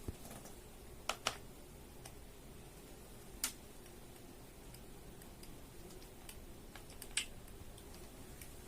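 A few small sharp clicks and taps, two close together about a second in and single ones near three and a half and seven seconds, over quiet room tone.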